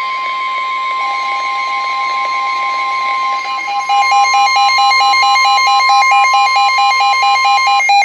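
Emergency alert attention tones: a steady, high electronic warning tone, joined about a second in by a second, lower tone. About four seconds in, the lower tone becomes a louder, rapid beeping of roughly five beeps a second, and the steady tone stops near the end.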